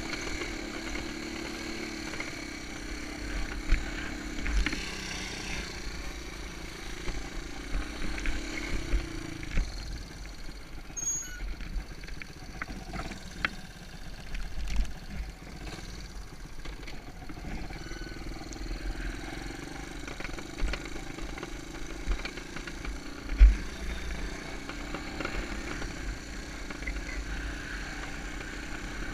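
Honda ATC 125M's small single-cylinder engine running, its pitch dropping and rising again several times as the throttle changes, with scattered low thumps that are strongest about 23 seconds in.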